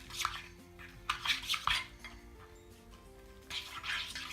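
A utensil scraping and clinking against a bowl in short bouts while stirring blue colouring into shaving foam, over background music.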